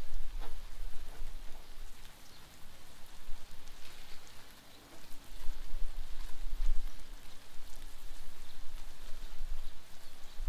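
Steak, sweet peppers and onions sizzling on a Blackstone flat-top griddle: a steady crackling hiss with scattered pops, over a low rumble that comes and goes.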